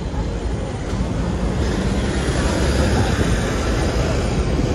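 Hong Kong double-decker tram running along its tracks: a steady rumble of wheels and motor, getting a little louder about a second and a half in.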